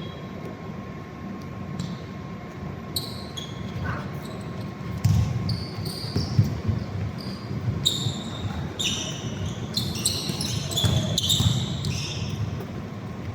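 Basketball bouncing on an indoor court during a game, a run of low thuds with scattered short, high-pitched sounds over them, in a large echoing hall.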